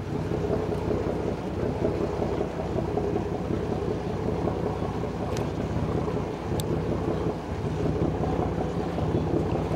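Excursion boat's engine running steadily, a low even hum.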